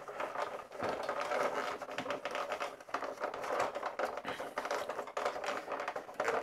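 Cloth rubbing over the hard plastic body of a vintage Star Wars Imperial Shuttle toy during cleaning and polishing. It is a continuous scratchy rustle of quick wiping strokes.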